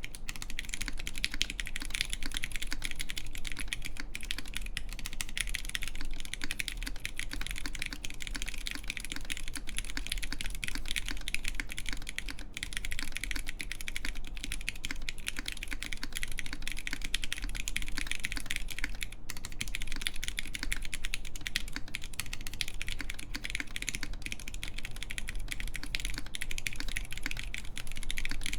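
Continuous typing on a gok 7V mechanical keyboard with lubed Zealio v2 tactile switches on a full aluminum plate and Cherry-profile keycaps: a dense, unbroken stream of keystroke clicks.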